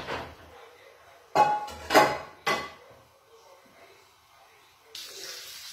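Metal frying pan knocking and clattering on the gas hob: a sharp knock at the start, then three ringing clatters about a second and a half to two and a half seconds in, as the sauté of calamari and mushrooms is tossed on high heat. Near the end the hot food starts to sizzle.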